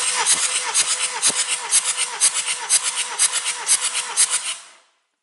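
BMW N47D20C 2.0-litre four-cylinder turbodiesel turned over by its starter motor for a compression test on cylinder three, with even compression pulses about four times a second. The cranking fades out near the end. The cylinder gives a reading of 24 kg/cm².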